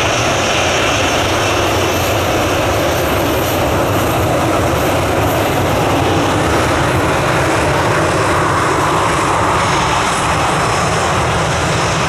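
Jet airliner's engines running, a loud steady rush with a thin high whine over it.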